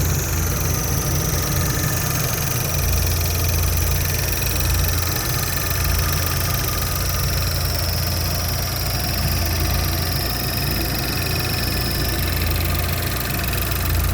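2012 Buick Regal GS engine running steadily at idle, with a faint high whine that drifts slowly down and fades near the end. This is the clicking noise whose cause the owner is asking about, not yet identified.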